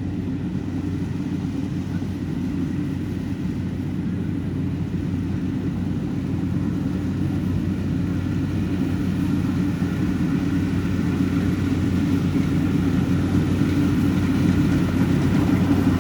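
Yanmar YH700 rice combine harvester running with a steady engine hum that grows gradually louder.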